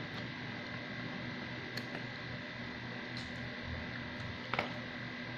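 Steady hum of a small motor with an even low pulse, with a few faint clicks and one sharper click about four and a half seconds in.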